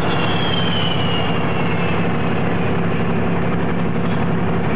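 Diesel engine of a tracked armoured vehicle running with a steady, loud drone, heard from on top of the vehicle. A faint high whine falls slowly in pitch during the first two seconds.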